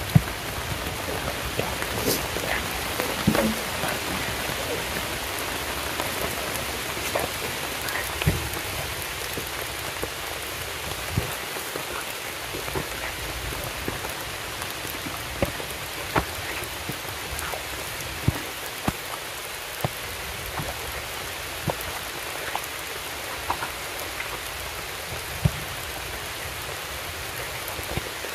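Steady rain falling, with sharp drops landing close by at irregular moments, every second or few seconds.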